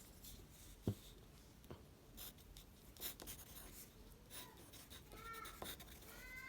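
Edible imitation tissue paper being handled and eaten close to the microphone: faint, scattered rustling and crinkling. There is a sharp tap about a second in and a few short squeaky pitched sounds near the end.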